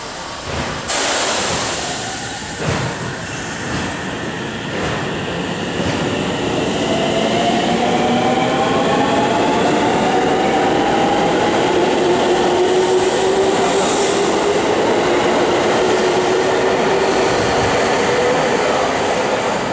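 A JR Central 313 series electric train pulling out of the station. A hiss starts suddenly about a second in, then the motors' whine rises slowly in pitch as the train gathers speed, over wheel noise and clacking on the rails.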